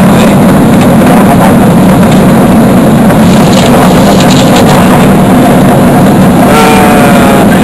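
Steady, loud roar inside the passenger cabin of a Boeing 777-300ER, the engines and rushing air of the jet heard together as one continuous drone, loud enough to overload the recording.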